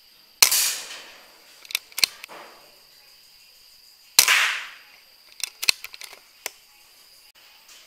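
PCP air rifle firing twice, about four seconds apart, each shot a sharp crack that trails off over about half a second. Several short sharp clicks follow each shot.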